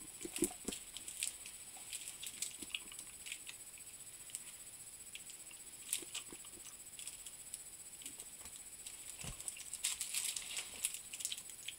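Faint, scattered small clicks and crinkles of a wrapped sweet being handled and bitten into. They come a little thicker near the end.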